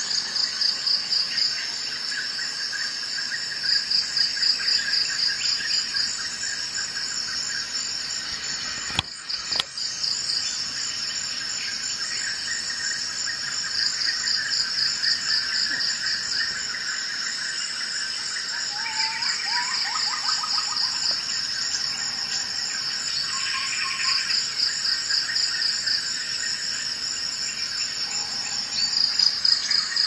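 Crickets chirping in repeated trilled bouts over a steady insect chorus, with a few short bird-like chirps in the middle and a single sharp click about nine seconds in.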